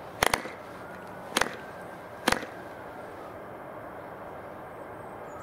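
Wooden propeller of a Super Hurricane 24 spark-ignition model engine being flicked over by hand three times, each flick a sharp double clack about a second apart. The engine does not catch.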